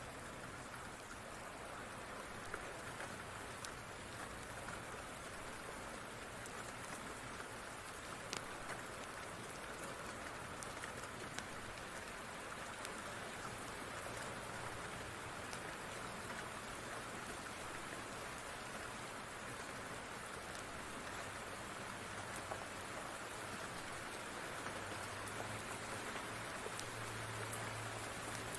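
Steady rain falling, with scattered sharp clicks through it. A low rumble builds near the end.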